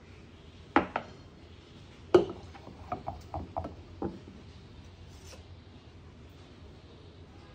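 Ceramic cappuccino cup and stainless steel milk pitcher set down and handled on a countertop: two sharp clicks about a second in, a louder knock about two seconds in, then a quick run of lighter knocks and clinks.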